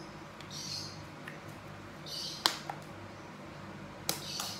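Small plastic capsule balls being handled and pried open: short plastic rustles with two sharp clicks, about two and a half and four seconds in.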